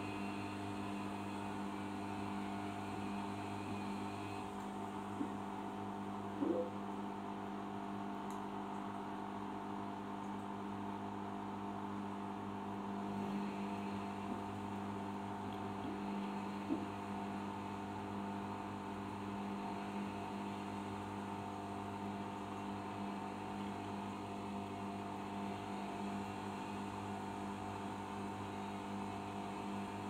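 Arçelik 5083 front-loading washing machine in its wash phase, its motor humming steadily as the drum turns an overloaded load of wet mixed clothes, with a few faint knocks in the first third and around the middle.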